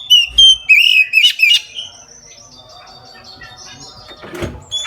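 Oriental magpie-robin (kacer) singing: loud, rich whistled phrases in the first second and a half, then quieter, softer notes. A short knock comes about four and a half seconds in.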